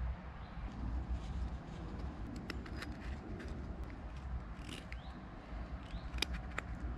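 Carving knife whittling a block of wood: irregular small sharp clicks and short scraping strokes as stop cuts and slicing cuts take wood away. A low steady rumble runs underneath.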